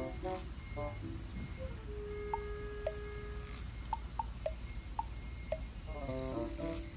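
A steady, high-pitched drone of insects, the loudest sound throughout, over light background music made of short melodic notes.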